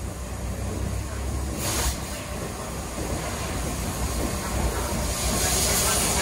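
Steam locomotive 3801 running with a steady low rumble, and hissing steam: a short burst a little under two seconds in, and a longer, louder hiss near the end.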